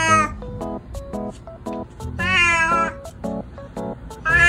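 19-year-old calico cat meowing loudly: one meow tailing off at the very start, a long meow about two seconds in, and another beginning near the end. Background music with short, evenly repeating plucked notes runs underneath.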